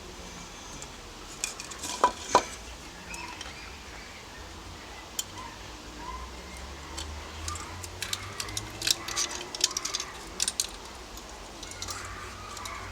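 Metal parts and tools clinking and knocking on a workbench: two sharp ringing clinks about two seconds in, then a run of lighter taps and clicks a few seconds later.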